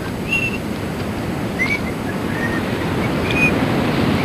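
Surf washing on a beach with wind, steady and growing a little louder toward the end. A bird gives short high chirps about once a second.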